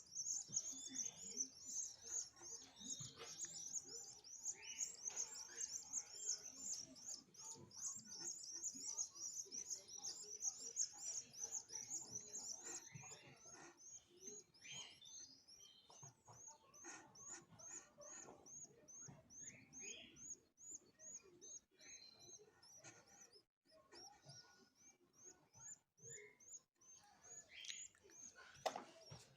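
Canary chicks cheeping in a fast, even run of high chirps, loudest in the first half and thinning out toward the end.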